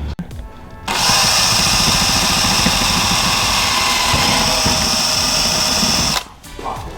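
Power drill running steadily for about five seconds, then stopping suddenly, drilling mounting holes for a bolt-on splitter.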